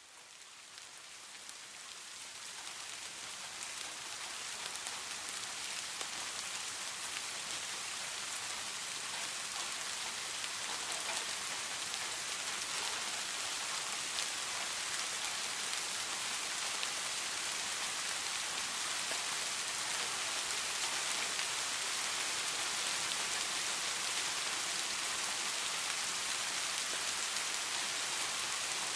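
Steady rain in a forest, fading in over the first few seconds into a dense, even patter with scattered distinct drops.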